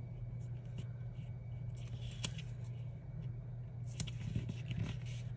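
Paper stickers being peeled from their backing and pressed onto planner pages: faint paper rustling with a few sharp ticks, the sharpest about two and four seconds in, over a steady low hum.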